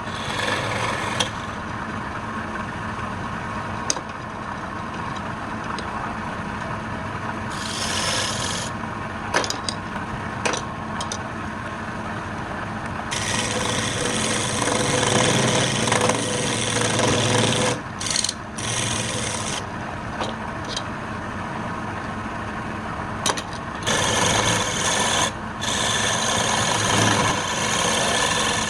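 A hand tool scraping against wood spinning on a woodturning lathe, over the lathe's steady running hum. The scraping comes and goes as the tool meets and leaves the wood, with a few sharp clicks.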